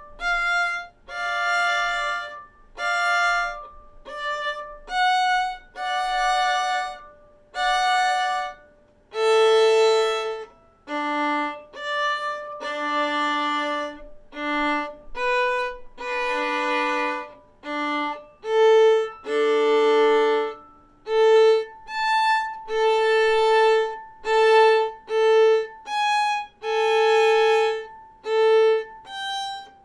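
Solo violin practising a double-stop passage slowly, bowing one note or one double-stop at a time. Each is held about a second, with short breaks between, in the bottom-note, top-note, then both-together practice method.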